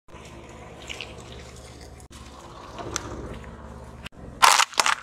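Objects being crushed under a slowly rolling car tyre on asphalt: soft crunching under a low steady hum, then, near the end, a loud sharp cracking as a glass liquid-foundation bottle is run over.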